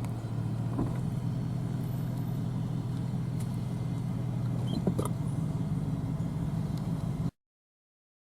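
A combine harvester's engine runs with a steady low drone, with a few faint clicks over it. The sound cuts off suddenly near the end.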